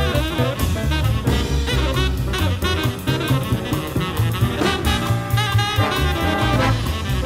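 Big band playing fast swing: a tenor saxophone solos over piano, bass and drums. Sustained trumpet and trombone chords come in during the second half.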